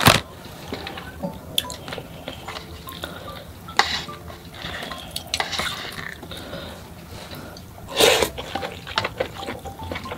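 Close-miked eating sounds: wooden chopsticks clicking and tapping against plastic trays and bowls, with wet chewing and handling of food. A louder short burst comes about eight seconds in.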